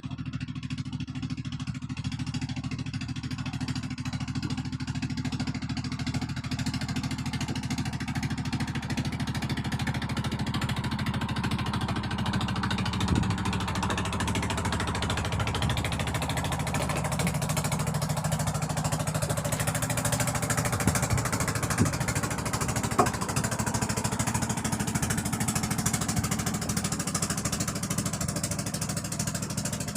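An engine running steadily at a constant speed, with a few short sharp knocks in the last third.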